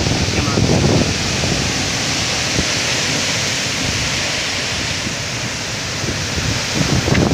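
Storm wind and heavy rain: a steady loud rushing hiss, with gusts buffeting the microphone in the first second and again near the end.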